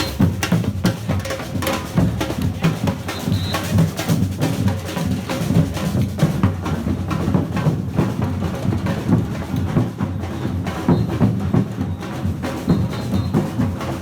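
Percussion group drumming: bass drums under a dense run of rapid, sharp hits.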